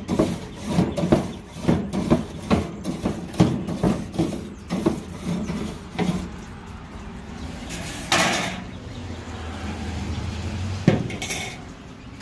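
Grill brush scrubbed back and forth over the offset smoker's metal cooking grate, about two to three strokes a second, stopping after about six seconds. About eight seconds in there is a short noisy rush, and near the end a single sharp metal clank.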